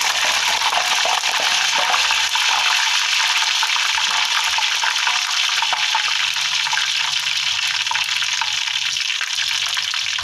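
Chicken pieces deep-frying in hot oil in a wok: a loud, steady sizzle with fine crackling throughout.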